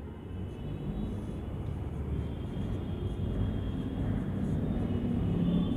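Low, steady rumble with a faint hum, growing slowly louder.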